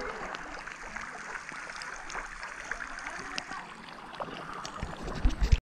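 Small pool fountain jet spraying, its water spattering down onto the pool surface: a steady splashing hiss with many little drips. A few low thumps about five seconds in.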